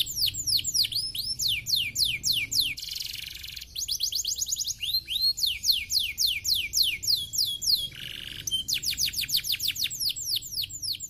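Domestic canary singing a long, fast song: quick trills of high notes, each sweeping steeply down in pitch, several a second. The trills are broken by a short buzzing rattle about three seconds in and again near eight seconds.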